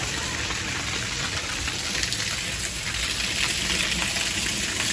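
Water spraying from a garden hose with its end pinched by hand to raise the pressure, falling and splashing on a concrete rooftop as a steady hiss.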